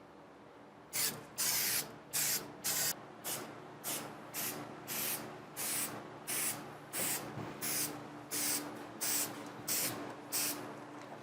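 Aerosol can of 3M Super 77 spray adhesive spraying in short bursts of hiss, about two a second, starting about a second in, as glue is laid on the headliner and the roof's pinch weld.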